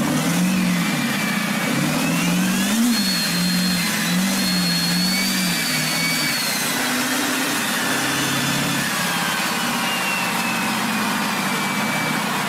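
Turbocharged pickup truck engine running on a chassis dynamometer. Its note wavers up and down for the first few seconds while a high turbo whistle climbs, holds, then slowly falls away through the second half as the engine settles to a lower, steadier run.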